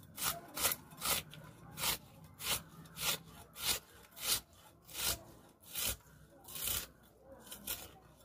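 An onion being sliced by hand against an upright curved kitchen blade (a boti): about a dozen crisp cuts, roughly one every half second to second, spacing out slightly toward the end.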